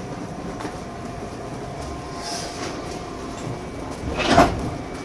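Train pulling away from a station: a steady rumble with faint clicks, and a brief, louder surge of noise about four seconds in.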